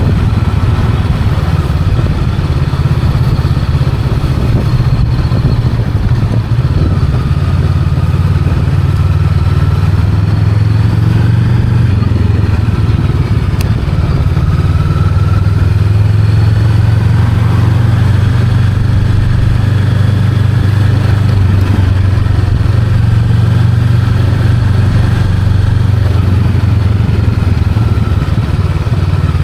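Honda Rebel 500's parallel-twin engine and exhaust running steadily while riding at a fairly constant speed, with only small changes in engine note.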